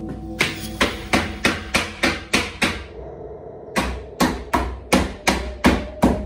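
A rapid, evenly spaced series of sharp knocks, about three a second, that stop for about a second midway and then start again.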